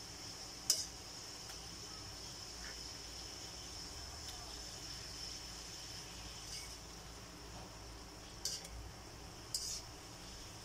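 Metal tongs clinking and scraping against a metal wok while turning pork steak simmering in sauce, with a few sharp clinks about a second in and again near the end. A steady high-pitched hiss runs underneath.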